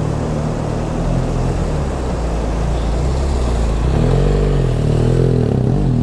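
Large adventure motorcycle's engine running under load as it climbs a rocky bank; from about four seconds in the revs rise and fall repeatedly as the rider works the throttle over the rocks.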